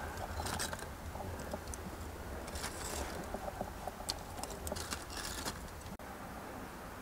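Wood fire crackling in a brick oven's firebox while lumps of charcoal clatter in from a sack: scattered sharp clicks and pops over a steady low rumble. The sound changes abruptly about six seconds in.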